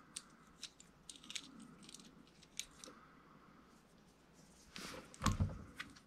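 Small metal clicks and clinks as the parts of a Greenlee knockout punch and the punched-out sheet-metal slug are handled, with a louder clunk and rustle about five seconds in.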